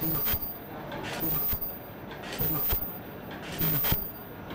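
Non-woven bag making machine running, its cutting and sealing head cycling with a sharp clack about every second and a quarter as each bag is cut off.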